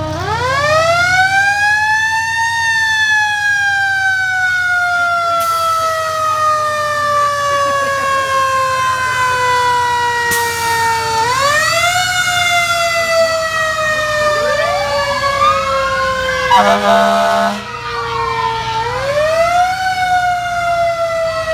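Fire engine siren wailing, rising quickly in pitch and then sliding slowly down, three times over: at the start, about 11 seconds in, and about 19 seconds in. A short, loud horn blast sounds about 17 seconds in.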